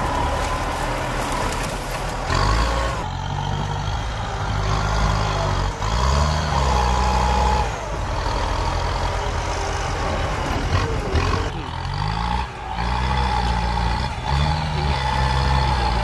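Farm tractor engine working hard as its front blade pushes earth, revving up and dropping back again and again, with a steady high whine over the engine.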